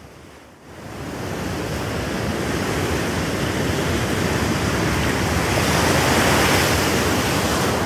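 Intro sound effect: an even rushing noise like surf or wind, faint at first, then rising sharply about a second in and swelling louder over the next several seconds.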